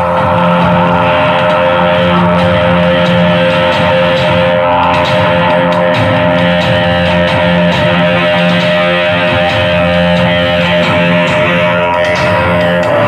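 Loud music with guitar over a steady bass line, played through a sound system.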